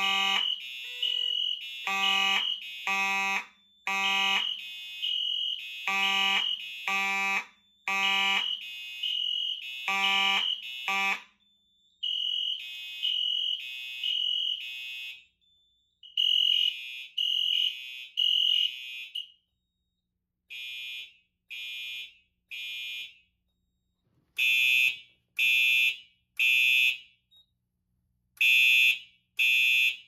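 Several fire alarm horn strobes sounding together in the temporal three-pulse evacuation pattern: three beeps, a pause, then three more. The horns drop out one by one as the alarm is silenced on each linked panel. A lower, buzzier horn stops about a third of the way in, and a single horn is left beeping in groups of three near the end.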